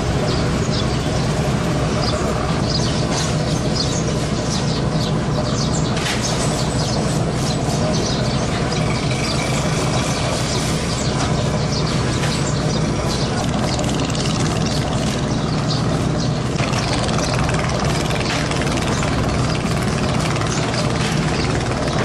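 Fishing boat's diesel engine running at a steady pitch, a low even hum.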